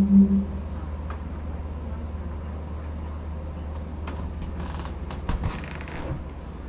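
A steady low hum with a few clicks and rustles of handling about four to six seconds in. A short pulsing tone dies away right at the start.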